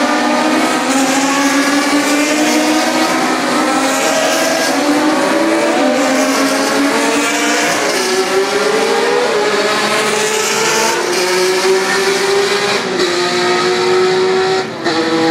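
Historic 1966–1984 Formula 1 cars racing, several high-revving engines overlapping. Their pitches climb and step as the cars accelerate and change gear.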